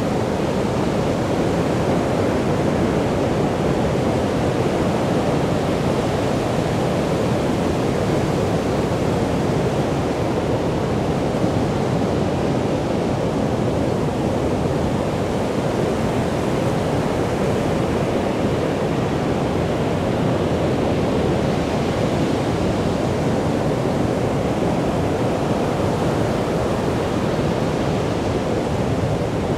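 Heavy surf breaking on a beach: a steady, continuous rush of waves with no single crash standing out.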